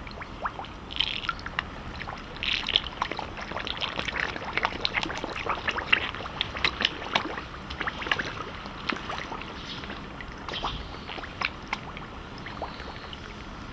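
Koi carp feeding at the water surface: an irregular patter of wet smacks, slurps and small splashes as their mouths gulp floating food, busiest in the middle and thinning out near the end.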